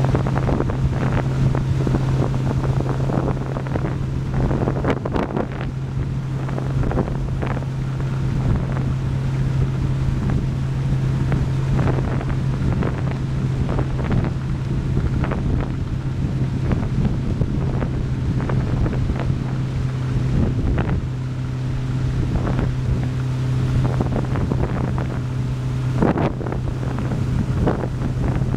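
Motorboat engine running steadily at cruising speed, a constant low hum, with wind buffeting the microphone in irregular gusts.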